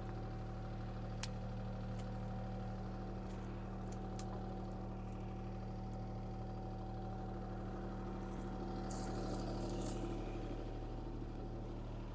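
Diesel engine of compact earthmoving equipment idling steadily, with one sharp click about a second in and a short rustle or scrape near the end.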